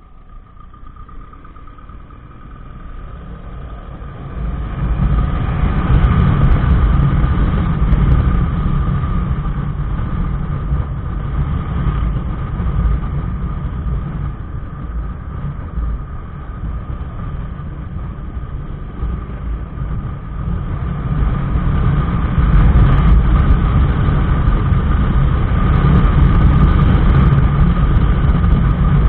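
Motorcycle riding on the road, picked up by a bike-mounted action camera: engine and a heavy wind and road rumble, building over the first five seconds as the bike gets up to speed, then steady, with a thin steady whine throughout.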